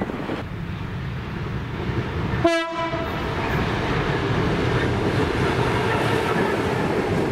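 Diesel-hauled freight train led by locomotives VL360 and G532 approaching and passing: a short toot of the lead locomotive's horn about two and a half seconds in, then the diesel engines and wagons rumbling, growing slowly louder as the train comes level.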